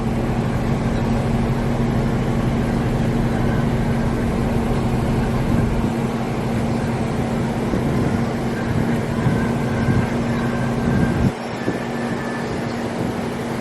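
A car's engine running and cabin noise heard from inside the car: a steady hum with a low rumble, and the rumble drops off suddenly about eleven seconds in.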